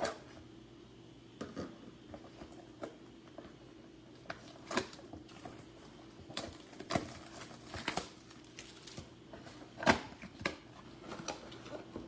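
Trading-card box and foil packs being handled and opened by hand: irregular crinkles, taps and clicks of cardboard and wrapper, the loudest about ten seconds in, over a faint steady hum.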